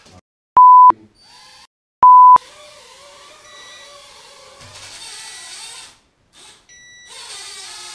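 Two loud, steady single-pitch beeps about a second and a half apart. Then the small electric motors of a cheap mini quadcopter buzz and change speed, with thin high-pitched beeps about midway and again near the end.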